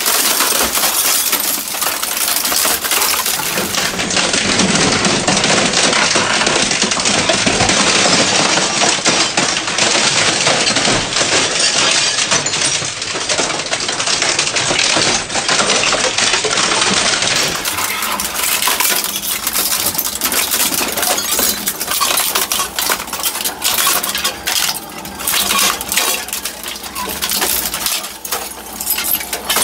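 Industrial twin-shaft shredder's cutter discs tearing through an inkjet all-in-one printer: continuous loud cracking and crunching of the plastic housing. It thins out in the second half into separate sharp snaps and cracks.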